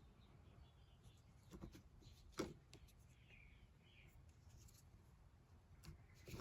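Near silence with a few faint clicks of small metal parts being handled as a screw is worked into a lid handle's threaded insert; the sharpest click comes about two and a half seconds in.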